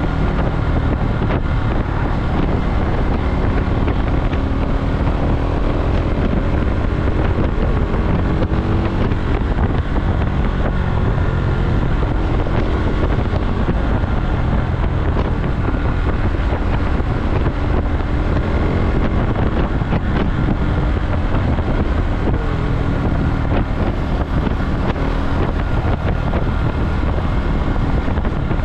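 KTM Duke motorcycle engine running under way, its pitch rising and falling with the throttle, over heavy wind noise on the microphone.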